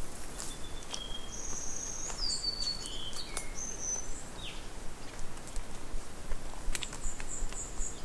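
Footsteps crunching on a dirt and leaf-litter rainforest track, with birds calling. Several whistled notes, some gliding, come in the first half, and a quick run of high notes near the end.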